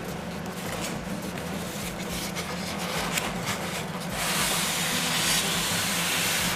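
Cardboard rubbing and scraping as a boxed RC boat is opened by hand. About four seconds in, a louder steady scraping hiss comes in as the styrofoam packing tray slides out against the cardboard box.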